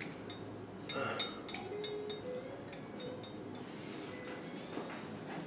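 Light metallic clinks and taps, a quick cluster of them about a second in and a few more later, as an air-cooled VW cylinder barrel is worked down over its piston between the head studs.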